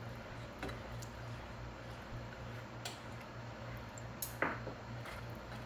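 Faint scraping and squishing of a spatula stirring thickening milk pudding in a non-stick pan, with a few light ticks and one short scrape about four and a half seconds in. A steady low hum runs underneath.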